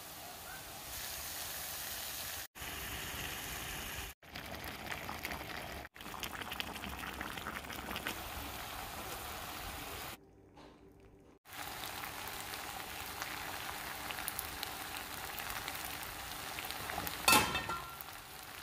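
Onions, tomatoes and then chicken masala frying and sizzling in a pot, a steady hiss broken off by several short cuts, one lasting about a second. A brief louder sound comes near the end.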